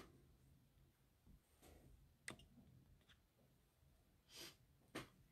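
Near silence broken by about five faint clicks and light scrapes, a second or so apart, of a tool stirring chalk paste in its small jar.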